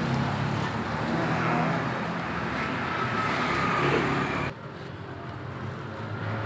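Steady motor-vehicle engine and traffic noise with a low hum, which drops suddenly about four and a half seconds in and continues more quietly.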